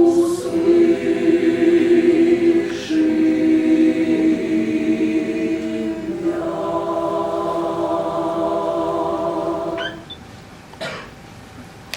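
A church choir singing a cappella in several voice parts, holding long chords that shift every few seconds. The singing ends about ten seconds in.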